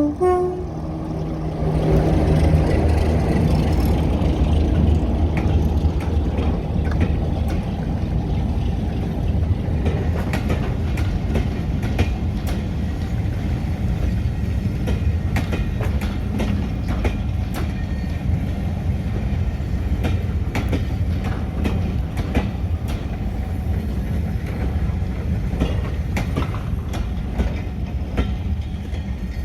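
A diesel train running with a steady low engine rumble, and wheels clicking over rail joints from about ten seconds in. A horn blast cuts off right at the start.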